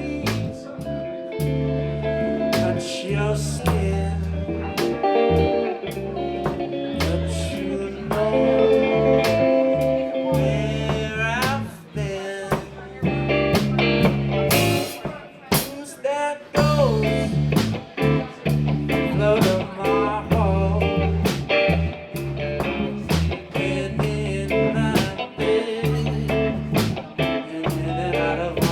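A live band playing a blues-rock number: an electric guitar lead with bent notes over a bass line and a steady beat.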